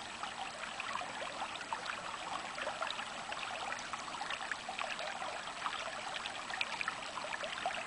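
Running water with a steady babble and many small splashes and trickles, as of a shallow stream flowing over stones.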